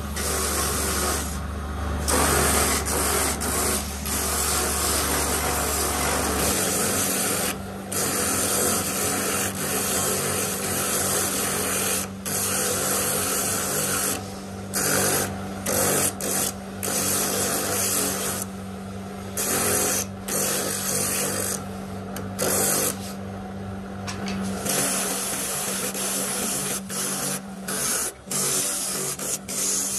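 Small electric bench motor running an abrasive wheel on its spindle, sanding a wooden spoon. A steady motor hum sits under a harsh rasping hiss that breaks off briefly many times as the wood is lifted from the wheel and pressed back on.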